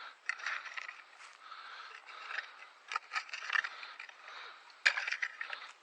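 Scraping and rustling of soil being dug through to get potatoes out, with scattered clicks and one sharp knock about five seconds in.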